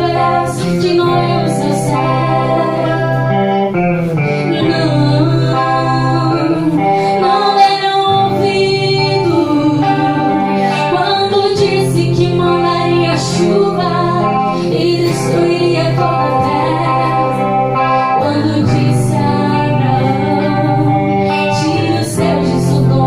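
A slow Christian song with singing over guitar accompaniment and a steady bass.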